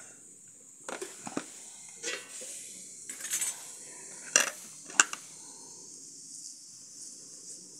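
Metal spoon scraping and knocking in a plastic bucket while scooping out the top layer of fermented flour dough, in irregular strokes. A sharp knock about five seconds in is the loudest.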